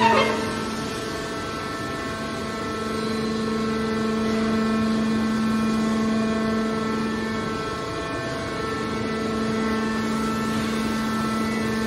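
Hydraulic scrap-metal baler's power unit, its electric motor and hydraulic pump running steadily with a hum of several steady tones while the ram is at rest.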